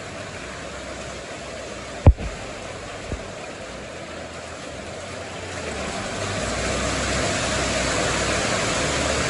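Steady hiss of rain and running floodwater that swells louder about halfway through, with a sharp low thump about two seconds in and a smaller one a second later.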